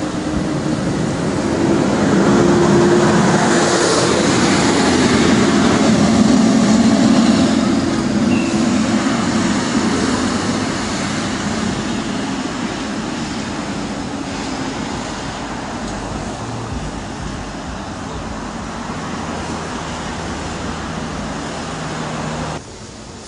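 Road traffic on a busy multi-lane street: engines and tyres of passing trucks and cars, loudest a few seconds in as vehicles pass close, then a steadier, lower rush. The sound drops suddenly near the end.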